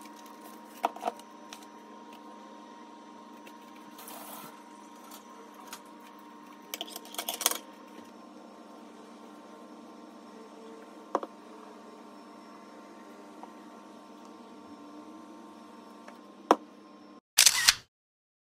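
Kitchen prep sounds over a steady low hum: a few sharp clicks and clinks of a metal measuring spoon and spatula against a stainless steel mixing bowl of raw beef. A short, louder clatter comes near the end.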